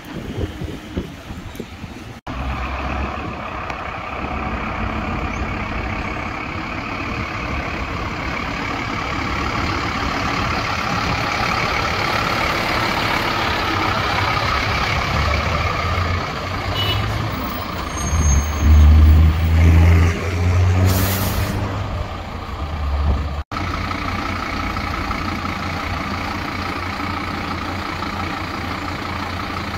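Heavy truck's diesel engine running, growing louder about two-thirds of the way through, with a short air-brake hiss.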